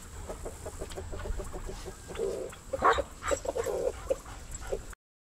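Chickens clucking in quick runs of short repeated notes, with a louder, sharper cry about three seconds in. The sound cuts off abruptly just before the end.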